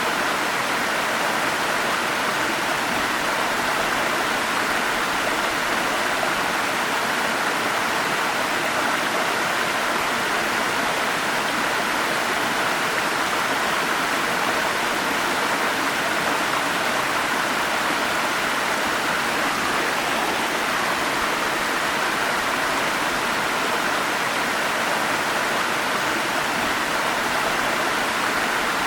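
Forest stream flowing steadily: an even, constant rush of water with no breaks or changes.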